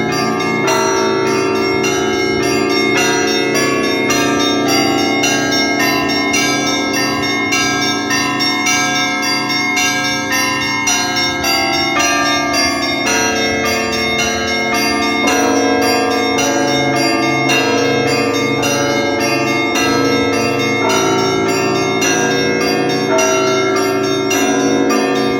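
Russian Orthodox church bells in festal ringing for the liturgy. Several bells sound together: small bells are struck rapidly over the slower, repeating strokes of deeper bells.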